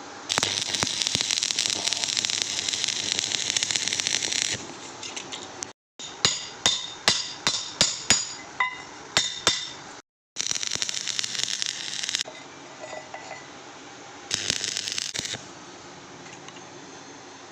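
Electric arc welding on a pipe: the arc's steady crackling hiss in several bursts. In the middle come about ten sharp, ringing metal strikes, a hammer hitting the pipe at roughly two or three blows a second.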